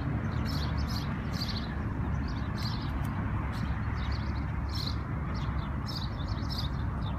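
Small birds chirping in short, quick calls, about two a second, over a steady low hum.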